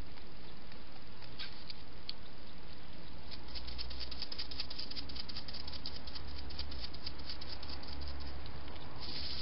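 Hedgehog chewing its food: a few separate clicks, then from a few seconds in a fast, dense run of small wet clicks, ending with a brief louder burst of noise near the end.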